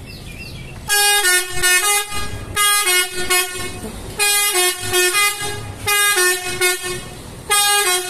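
Bus telolet horn, a multi-trumpet musical air horn, playing a stepping multi-note tune in five short phrases, starting about a second in. It is the loudest sound by far.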